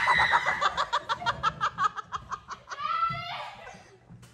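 Young women laughing hard: a rapid run of ha-ha pulses that fades over about three seconds, a short higher-pitched vocal laugh about three seconds in, then the laughter dies away.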